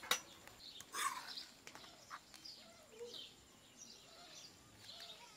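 A steel ladle clinks sharply against a steel plate at the start, followed by a scrape and a few softer knocks as food is served. Faint bird chirps sound in the background.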